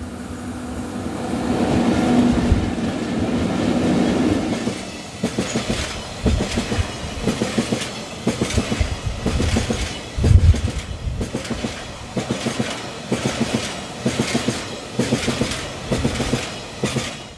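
JR Freight EF64 electric locomotives of a double-headed oil tank train passing close by with a steady hum for the first four seconds or so. The tank cars follow, their wheels clacking over the rails in a steady clickety-clack rhythm.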